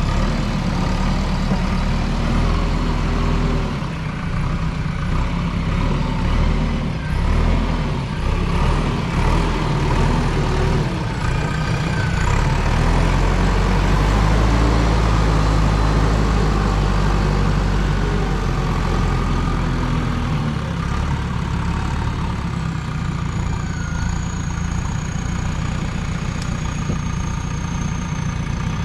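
Diesel engine of a JCB 3DX backhoe loader running under working load while it digs. The engine note swells and eases with the work, heaviest around the middle and settling lower about two-thirds of the way through.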